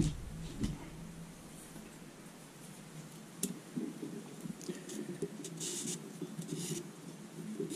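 Strip of 1200-grit wet-and-dry abrasive paper worked around an oiled main journal of a Rover 3.5 litre V8 crankshaft. It gives a soft, uneven rubbing from about three and a half seconds in, with a few short scraping strokes.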